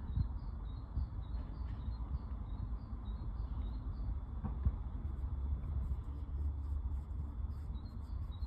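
A small bird chirping over and over, short high notes at about two to three a second, over a steady low rumble.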